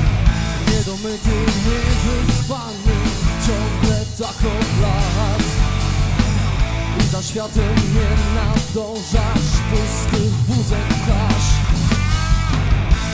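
Live rock band playing through a PA: electric guitars, bass guitar and a drum kit, with a male singer's voice.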